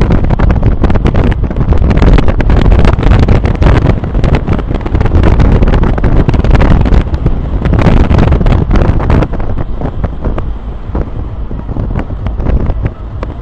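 Skateboard wheels rolling fast downhill on asphalt: a loud rumble with frequent clicks and knocks, under heavy wind buffeting on the microphone. It eases a little about nine seconds in.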